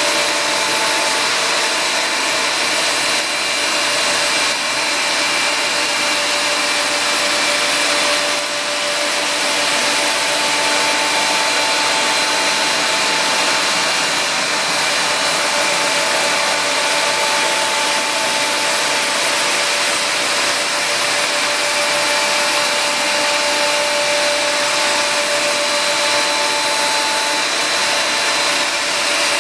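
Ash vacuum extracting through a CNC dust skirt, a steady rush of air with thin whining tones over it. One higher tone drops out from about one to ten seconds in and again near the end.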